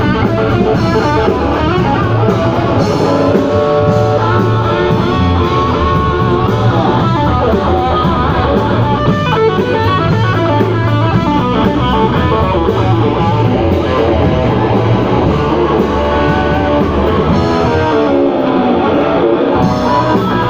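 Instrumental rock music led by electric guitar over a steady bass line.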